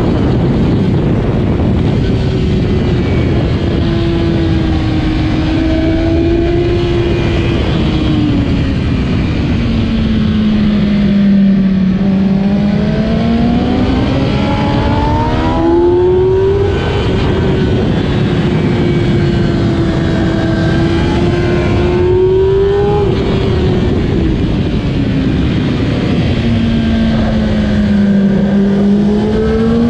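Kawasaki ZX-10R (2008) inline-four superbike engine at racing speed. The engine note falls slowly under braking into corners, climbs again on the throttle, and drops sharply at quick gear changes.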